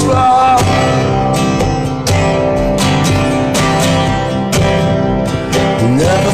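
Steel-string acoustic guitar strummed in a steady rhythm, about two strokes a second. A man's singing voice trails off at the start and comes back in near the end.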